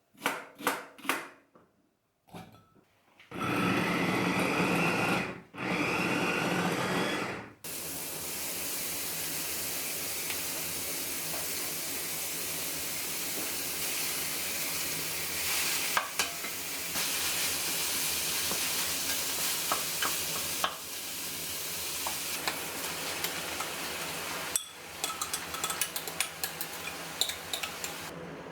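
A few knocks, then a small kitchen motor runs in two short bursts, like a chopper or blender. After that, food sizzles steadily as it fries in a pan, with light taps of stirring near the end.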